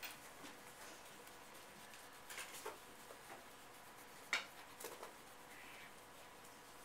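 Quiet room tone with a few faint, short clicks and taps scattered through it, the sharpest about four seconds in.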